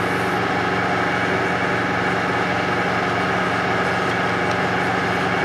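Palm sander running steadily while wet sanding a plastic headlight lens with 2000-grit paper.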